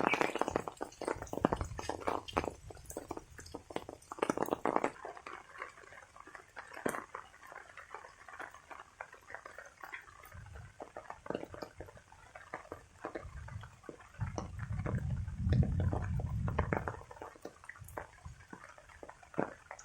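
Rain dripping and splashing in irregular drops and ticks, with a low rumble from about two-thirds of the way through.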